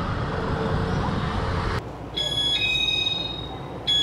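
Low street-traffic noise, then, about two seconds in, a train's electronic door chime: a two-note tone that starts again just before the end.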